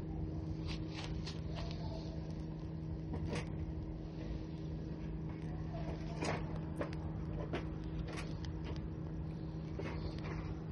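Wood fire crackling in a fire pit, with irregular sharp snaps, over a steady low hum and rumble.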